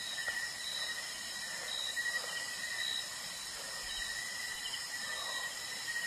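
Night insects chirping and trilling in a steady, high-pitched chorus, with a few short chirps repeating above it.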